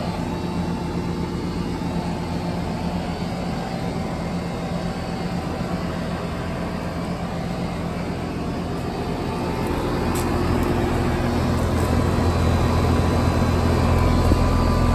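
Trane XE 1200 central air-conditioner outdoor unit running with a steady compressor and fan hum. About ten seconds in a second unit starts up and the hum grows louder and deeper as both run together.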